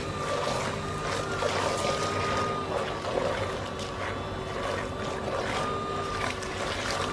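Portable clip-on bucket washer running: its small motor whines steadily while the impeller churns the water and clothes, with irregular sloshing and splashing in the bucket.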